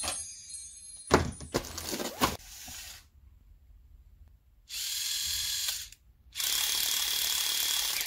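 A few sharp clicks, then two steady whirring bursts of about a second or more each, like a small motor running in a hand-held plastic gadget.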